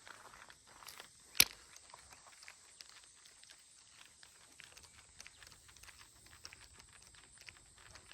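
Quiet handling and walking sounds: one sharp click about a second and a half in, then light scattered ticks and rustles over a faint steady high whine.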